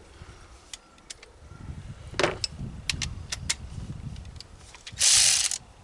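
Sharp metallic clicks and clinks of a 10 mm socket and hand tool being handled, with a louder, short rasping burst near the end.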